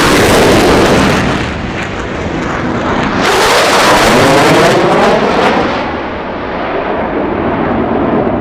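Fighter jet engines roaring as jets pass at high power: one loud low pass at the start, then another jet sweeping overhead about three seconds in with a phasing, whooshing roar that eases off toward the end.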